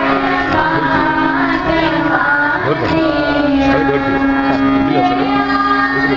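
A group of children singing a prayer together, over a steady held musical drone.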